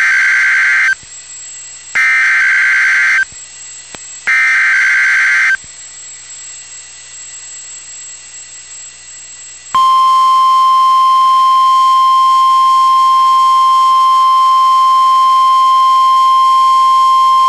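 NOAA Weather Radio Emergency Alert System signalling for a severe thunderstorm warning. First come three SAME data-header bursts, each a harsh warbling screech about a second long, two seconds apart. After a few seconds' pause, the weather radio's single-tone 1050 Hz warning alarm starts about ten seconds in and holds a loud, steady pitch.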